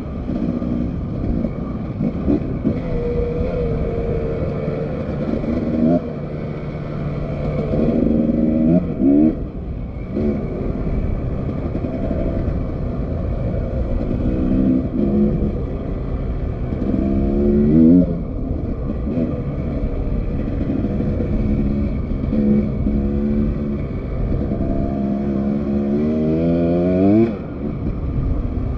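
Dirt bike engine running and revving in repeated bursts, its pitch climbing with each opening of the throttle about half a dozen times. The last and longest rise comes near the end and cuts off suddenly.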